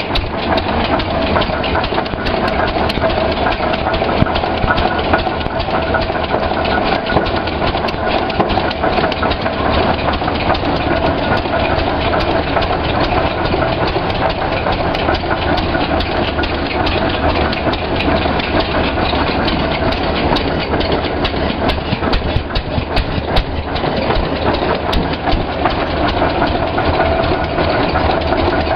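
1911 Rumely OilPull 15-30 Type F tractor's big single-cylinder engine running steadily, heard up close.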